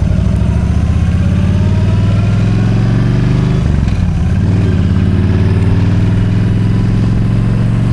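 Yamaha V Star 1300's V-twin engine heard from on the bike, pulling under acceleration with its note rising. It breaks briefly about four seconds in, then climbs again.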